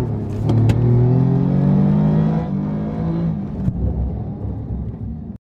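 Alfa Romeo Giulia's twin-turbo V6 exhaust note: the engine revs with rising pitch, with two sharp pops about half a second in. The pitch then drops and the engine eases off, fading before the sound cuts off abruptly near the end.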